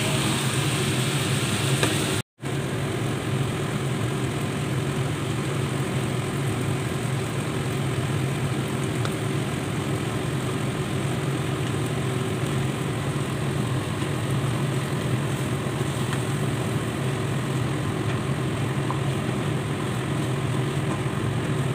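A steady low mechanical hum with a hiss over it, cutting out completely for an instant about two seconds in.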